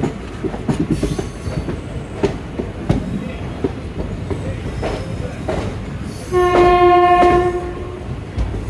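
Express train running with wheel clatter and knocking over the rails. About two-thirds of the way in comes a single steady horn blast lasting about a second and a half, the loudest sound.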